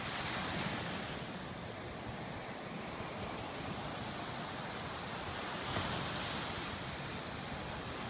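Small ocean waves breaking and washing up a sandy beach: a steady hiss of surf that swells louder twice, once at the start and again about six seconds in.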